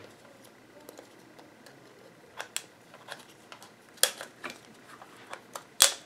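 Small scissors snipping through the thin plastic shell of an Easter egg to enlarge a hole in it: a few sharp, scattered snips and clicks, the loudest near the end.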